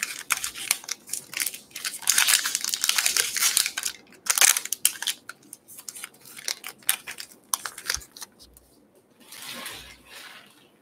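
A 2020 Topps Gypsy Queen baseball card pack's wrapper being torn open and crinkled by hand as the cards are pulled out: dense crackling and crinkling for about eight seconds, then fainter rustling near the end.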